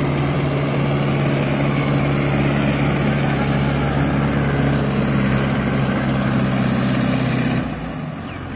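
Mahindra Yuvo 585 DI 4WD tractor's diesel engine running at a steady note as it pulls a loaded trolley through deep paddy-field mud. Near the end the engine sound drops suddenly to a much quieter level.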